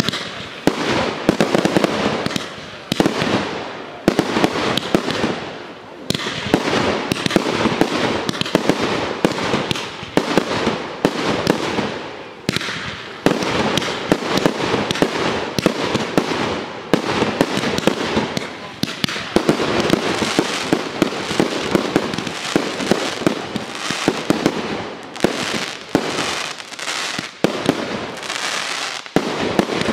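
Aerial fireworks display: a dense, rapid barrage of bangs and crackling, with short lulls every few seconds.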